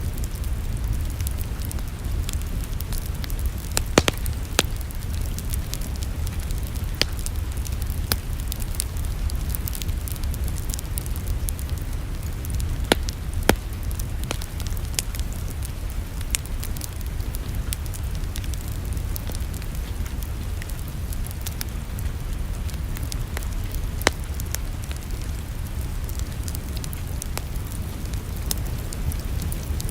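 Wood fire crackling in a fireplace: irregular sharp pops and snaps over a steady low rumble, with a few louder pops about four seconds in, around thirteen seconds, and near twenty-four seconds.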